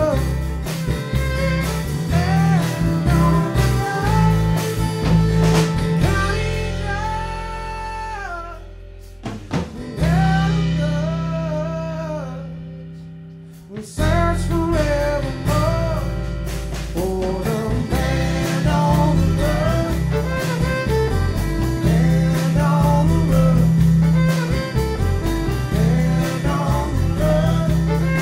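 A band playing a song live, with a singer's voice over the instruments. About a third of the way in the band drops away, leaving a held, fading vocal line, then the full band comes back in about halfway through.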